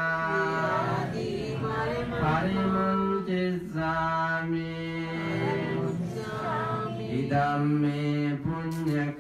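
A Buddhist monk's single male voice chanting in a slow melodic style, holding long notes of a second or two and stepping between pitches, with short breaths between phrases.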